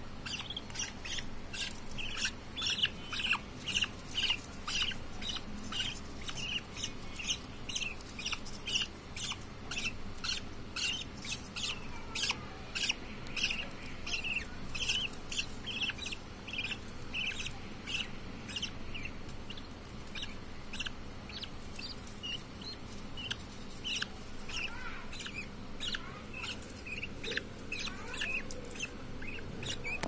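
Budgerigar chicks giving rapid, repeated high chirps, about three a second: the food-begging calls of nestlings being hand-fed.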